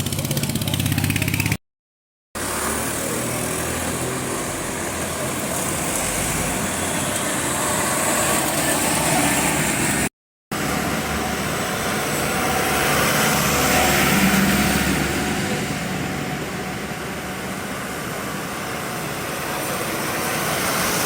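Steady vehicle engine and traffic noise, broken twice by a brief drop to complete silence.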